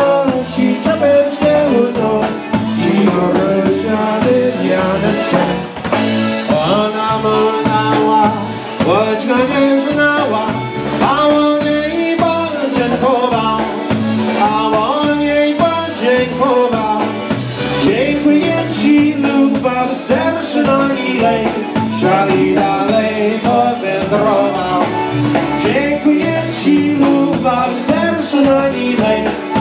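Live Polish polka band playing, with accordions and trumpets carrying the tune over electric bass and drums keeping a steady beat.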